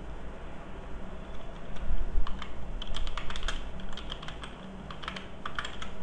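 Computer keyboard being typed in quick runs of keystrokes, one run about three seconds in and another near the end.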